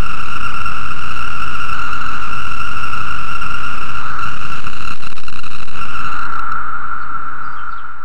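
Chorus of 17-year periodical cicadas (Magicicada) in the forest canopy: a steady, eerie drone of massed males calling to attract females. It fades out near the end.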